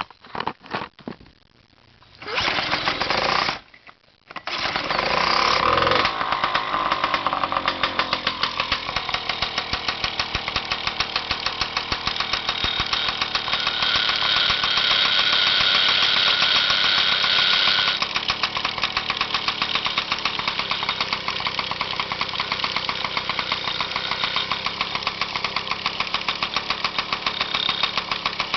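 Honda Hobbit PA50 moped's small two-stroke single-cylinder engine being started. After a few clicks and a brief first burst, it catches about four seconds in and keeps running with rapid, even firing pulses. For a few seconds midway a higher, brighter sound rides over it while the engine spins its variator face against sandpaper.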